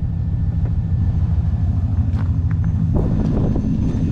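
C5 Corvette's 5.7-litre V8 idling steadily, running on fresh oil just after an oil change. A few light clicks and knocks sound about two and three seconds in.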